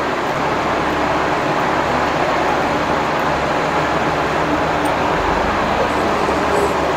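Steady background din of a busy bus terminus: bus engines running and a crowd murmuring under the hall's roof, with a brief low rumble about five seconds in.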